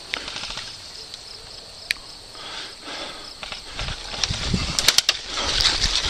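Footsteps and gear rustle of a player moving on foot, growing louder about four seconds in, with a few sharp clicks near the end.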